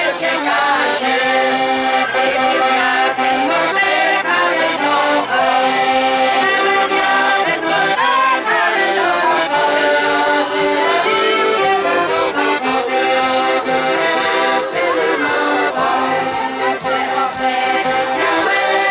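Accordion playing a traditional folk tune live, continuous and lively with sustained chords under the melody.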